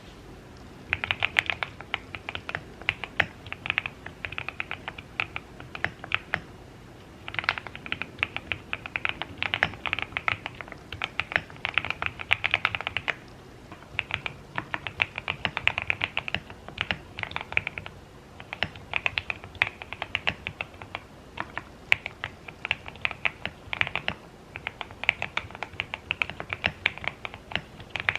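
Fast typing on a QK65 mechanical keyboard with lubed Gateron Milky Yellow linear switches and full foam. The keystrokes come in runs of a few seconds, with short pauses in between.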